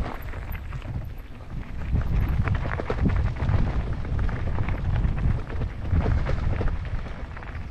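Mountain bike riding over a rough, stony trail: wind rumbling on the microphone, with irregular rattling and clicking from the tyres on stones and the bike shaking.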